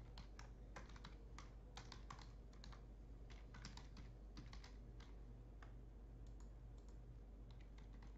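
Faint typing on a computer keyboard: irregular keystroke clicks in quick runs, thinning out over the last couple of seconds, over a low steady hum.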